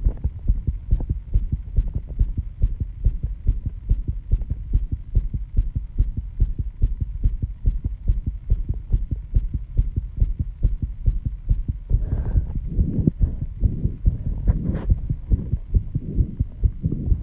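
A fast human heartbeat, raised by intense exercise, thumping evenly at about two beats a second. A couple of breaths come through about twelve and fifteen seconds in.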